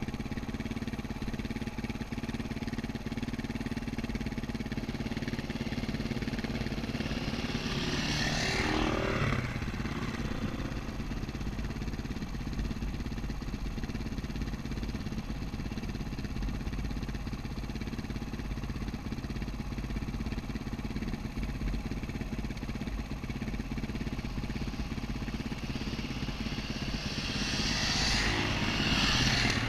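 Enduro dirt bike's engine running steadily while riding a dirt track, heard from the rider's helmet. Near the end another dirt bike comes up alongside and the engine sound swells.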